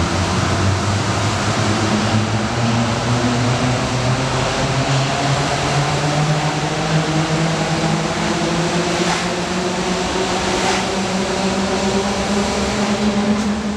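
Shanghai Transrapid maglev train passing at high speed: a steady, loud rush of air with a low hum that slowly rises in pitch, easing off near the end.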